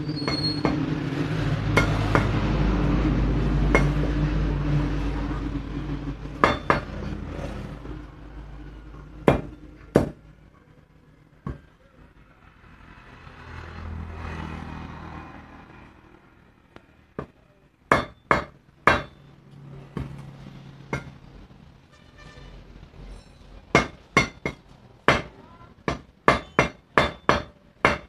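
Meat cleaver chopping chicken on a wooden chopping block: sharp single chops spaced a few seconds apart, then a quick run of chops near the end. A low hum runs underneath for the first several seconds, then fades.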